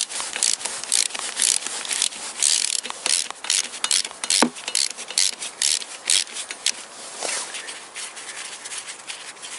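A ratchet and long socket extension loosening the last flywheel bolt: short, irregular rasping strokes of ratchet clicking and metal and gloves scraping, with one sharper click about four and a half seconds in.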